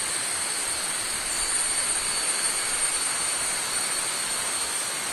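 Tropical jungle insect chorus: a steady, high-pitched buzzing drone.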